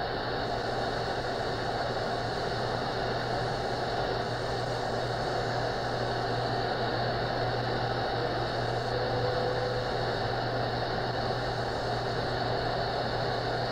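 Steady shortwave static from an RTL-SDR receiver in AM mode, played through a speaker, with a low hum under it. It is tuned to the WWV time signal on 15 MHz, which is weak and buried in the noise.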